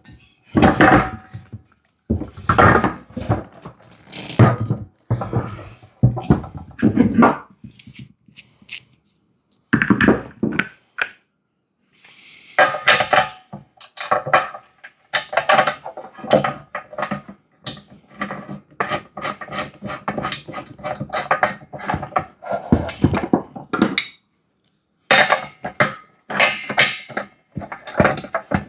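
Irregular clanks, clinks and thunks of metal hardware being handled and fitted: the axle, wheel, washer and bolt going onto the air compressor's frame, with a few metallic rings.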